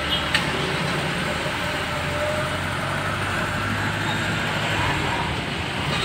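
Mahindra Thar's engine and road noise heard from inside the cabin, driving slowly in town traffic while towing a broken-down auto-rickshaw: a steady low hum with a short click about a third of a second in.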